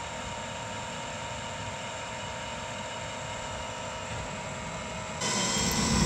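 Waste-oil burner firing on very low fuel and high air: a steady rush of blower air and flame with a faint steady hum. About five seconds in it changes to a louder, brighter rush.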